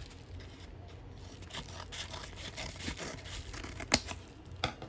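A trading card and its plastic holder being handled: soft scraping and rustling with scattered small clicks, and one sharp click about four seconds in.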